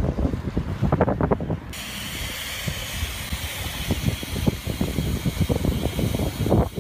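Wind buffeting an outdoor microphone, with a steady hiss setting in about two seconds in.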